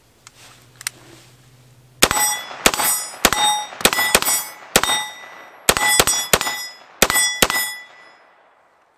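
Diamondback DBX 5.7 semi-automatic pistol in 5.7×28mm fired in a quick string of about a dozen shots at uneven spacing, starting about two seconds in, with a short metallic ringing after each shot.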